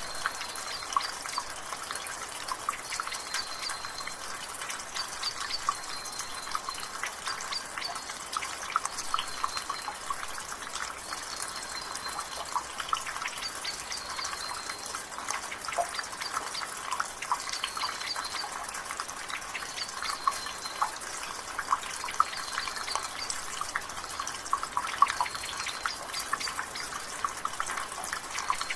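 Rainwater dripping and splashing from a gutter, a quick irregular patter of drips over a steady drizzle hiss. A bird repeats a short high note every second or two in the background.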